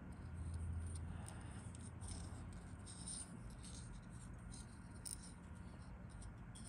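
Faint clicking and rubbing of small injection-moulded plastic aircraft-model cowling parts being handled and fitted together between the fingers, with a brief low hum in the first second or so.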